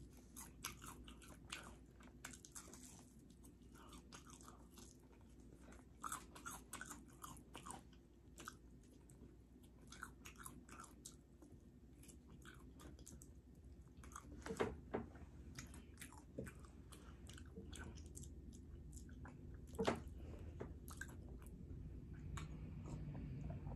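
Close-up mouth sounds of eating fried chicken: wet smacking and chewing in quick, irregular clicks. A few louder smacks stand out in the second half.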